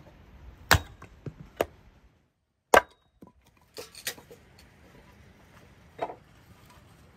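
A string of sharp wooden knocks at irregular intervals, the loudest about a second in and just before the three-second mark, with a brief drop-out to silence between them.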